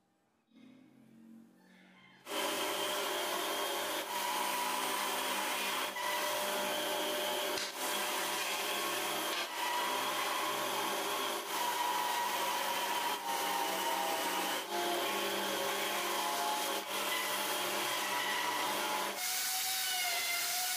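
An electric power tool cutting or shaping wood: a steady motor whine over loud cutting noise that sets in about two seconds in. It dips briefly every one and a half to two seconds, and the whine shifts in pitch near the end.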